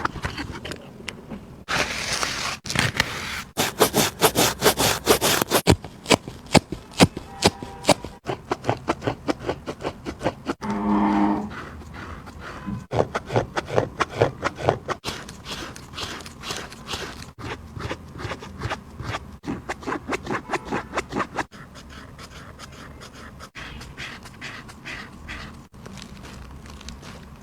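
Shoe box and packaging being handled and opened: repeated scraping, rubbing and rustling with many quick clicks, busiest in the first third. A short pitched squeak-like sound comes about eleven seconds in.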